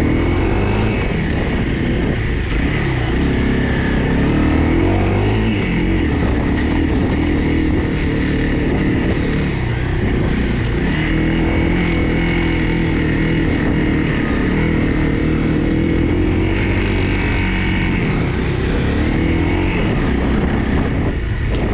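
Honda CRF250L's single-cylinder four-stroke engine running as the bike is ridden along a dirt trail. Its note rises and falls as the throttle is worked.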